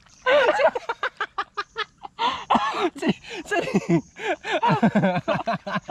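People's voices talking close to the microphone in quick, broken phrases, the words not made out.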